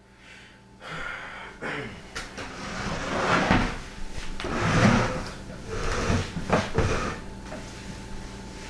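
Handling and movement noise: a string of irregular rustles and knocks as someone moves about close to the microphone and settles into a seat, busiest about a third of the way in through the middle.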